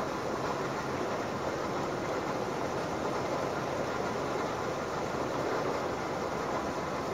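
Steady rushing noise of sea water washing against a rocky breakwater, even in level throughout.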